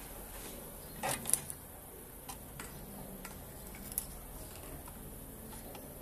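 Light clicks and taps from plastic tubing and fittings being handled against the water filter's metal top plate: a short cluster about a second in, then a few single clicks.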